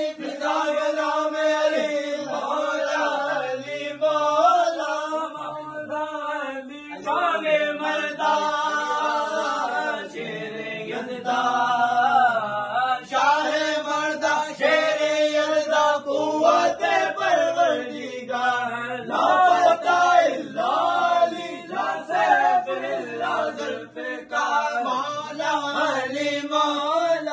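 Men's voices chanting a manqabat, a devotional Urdu song in praise of Ali, in long melodic phrases with bending, ornamented pitch and short breaths between lines.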